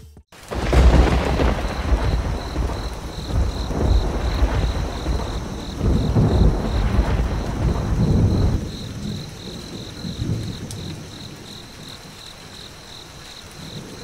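Thunderstorm: a heavy rolling rumble of thunder over steady rain, the thunder dying away about eight and a half seconds in and leaving the rain hissing on its own.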